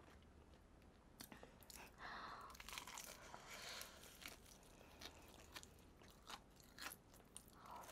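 Close, quiet crunching and chewing of crispy BBQ Golden Olive fried chicken: teeth breaking through the fried crust, with many small crackles as it is chewed.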